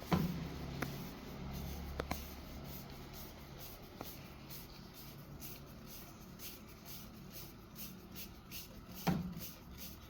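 Quiet handling sounds: a sharp click at the start, then a few light clicks and knocks as a can-metal strainer is worked into a heated PVC pipe. A short low voice sound comes near the end.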